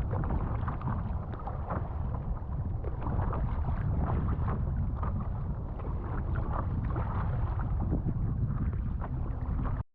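Strong wind buffeting the action-camera microphone as a deep rumble, with irregular splashes of choppy water around a paddleboard; it cuts off suddenly near the end.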